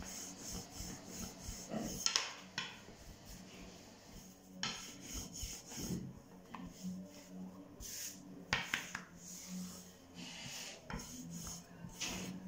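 A long, thin wooden rolling pin (oklava) being rolled back and forth over unleavened dough on a floured counter, making irregular rubbing, swishing strokes as the dough is thinned out by hand. Now and then the wood knocks sharply on the surface, loudest about two seconds in and again past the middle.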